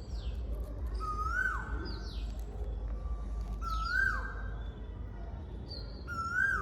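A cuckoo calling three times, about every two and a half seconds, each call swooping up and then dropping away. Chirps of other small birds come often in between, over a steady low rumble.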